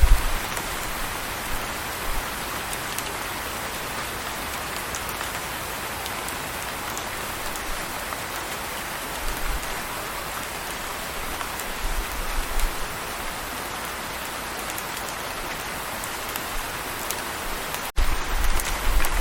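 Steady rain falling, an even hiss with scattered drop ticks. Just before the end the sound cuts out for an instant and comes back with a low rumble under the rain.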